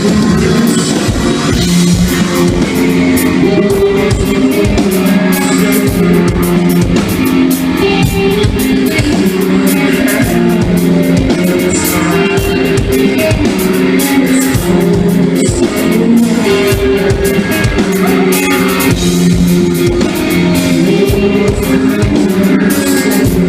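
Rock band playing live: loud electric guitars over a steady drum kit beat, with little or no singing in this passage.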